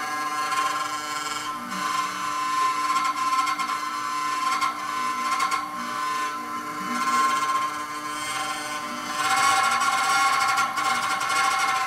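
CNC router spindle whining steadily as a thin end mill cuts a block of Cibatool polyurethane tooling board. The cutting noise rises and falls as the tool moves across the block and is loudest near the end.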